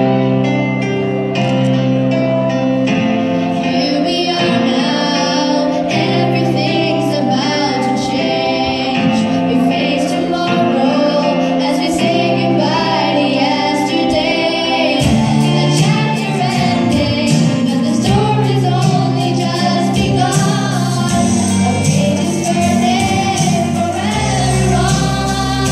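A large group of students singing together in a choir, with a few voices on microphones, over a steady instrumental accompaniment amplified through the hall's loudspeakers.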